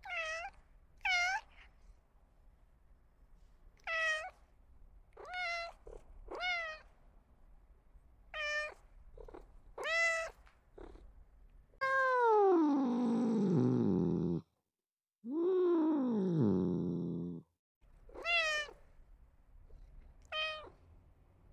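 Domestic cat meowing: seven short meows spaced one to two seconds apart, then two long drawn-out meows that fall in pitch and cut off abruptly, then two more short meows.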